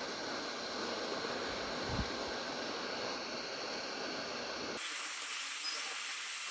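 Hot air rework gun blowing a steady hiss of air onto a phone circuit board to melt the solder under a battery connector. Nearly five seconds in, the sound switches abruptly to a thinner, higher hiss with faint ticks.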